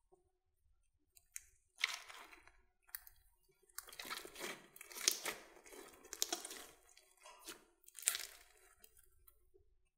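Hands squeezing and kneading a mound of slime mixed with small foam beads, giving wet squishes and crackles in irregular bursts. The first second is almost quiet, and the handling is busiest from about four seconds in.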